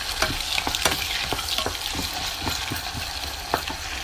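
Sliced onions frying in hot oil in a pan, sizzling steadily, with frequent light knocks and scrapes of a utensil stirring them.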